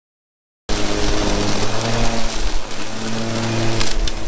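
Milwaukee M18 Fuel brushless cordless mower running with a steady hum, its blade cutting through tall dry weeds. It starts abruptly less than a second in, after silence.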